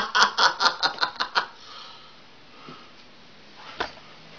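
A person laughing in quick, rhythmic bursts that fade out about a second and a half in. Then quiet room tone, with a single sharp click near the end.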